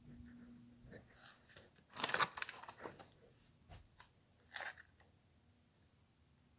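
Plastic Lego bricks of a brick-built toy gun clicking and rattling as it is handled. There is a louder clatter about two seconds in and a shorter one about four and a half seconds in.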